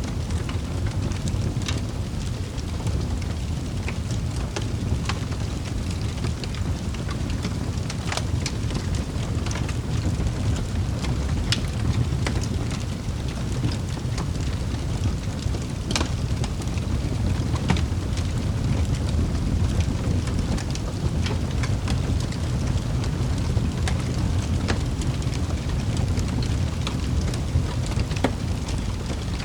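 Wood fire burning in a fireplace: a steady low rumble of flames with scattered sharp crackles and pops, one louder pop about halfway through.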